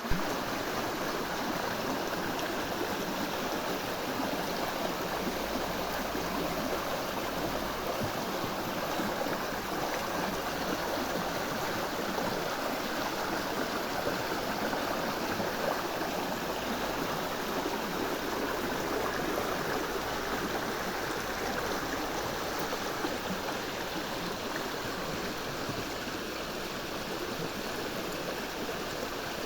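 River water flowing and rushing over rocks, a steady full rush of noise.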